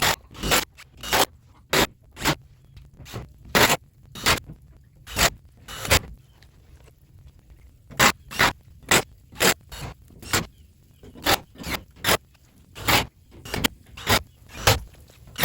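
Lumber being nailed together: a run of sharp, irregular knocks, about one or two a second.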